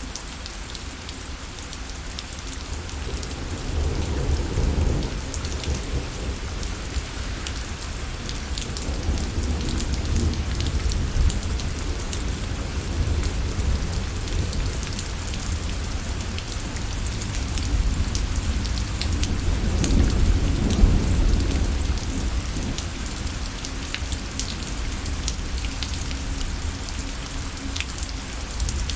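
Steady rain falling, with a fine patter of drops. Low rumbles of thunder swell about four seconds in and again around twenty seconds.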